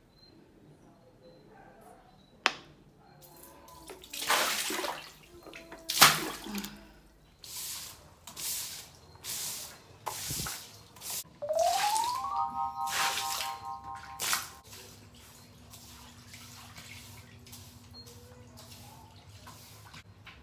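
A bristle broom scrubbing a wet tiled floor in a run of separate swishing strokes, with water sloshing. A short rising tone that then holds for about two seconds sounds partway through.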